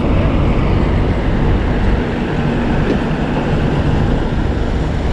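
Diesel bus engine running at low revs: a steady low rumble with a faint hum above it.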